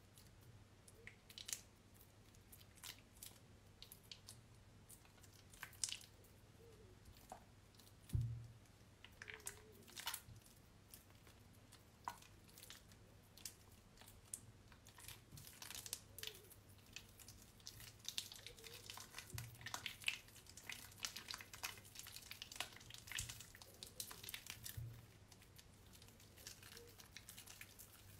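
Hands squeezing and kneading a water-soaked, mushy bar of soap: soft, irregular squelching and crackling that grows busier in the second half. A single dull bump comes about eight seconds in.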